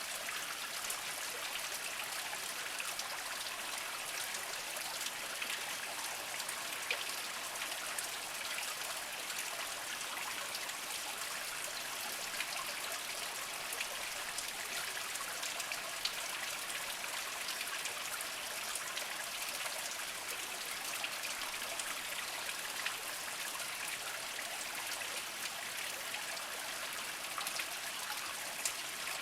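Small spring stream trickling and splashing over mossy rocks: a steady burble flecked with small drips and splashes.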